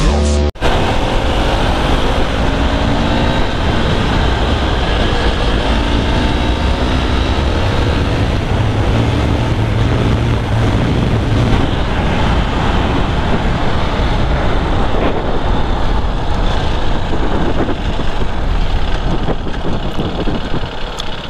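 KTM RC 390 single-cylinder engine running hard at highway speed, mixed with heavy wind rush on the bike-mounted microphone. The bike eases off near the end and the sound drops a little.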